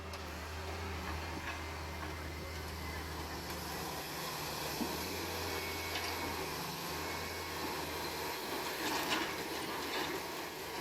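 A heavy digging machine's engine running steadily under a low hum, with a few short knocks in the second half.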